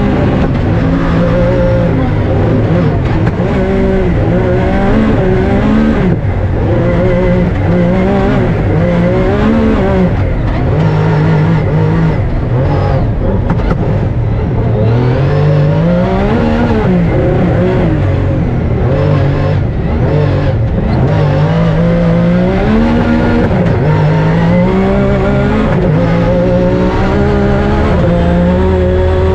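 Rally car engine running hard, its pitch rising and falling again and again as it accelerates, lifts and changes gear.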